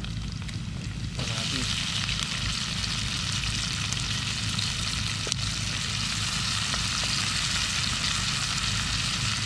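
Food going into hot oil in a pan: a sizzle that jumps up suddenly about a second in, then holds steady as it fries.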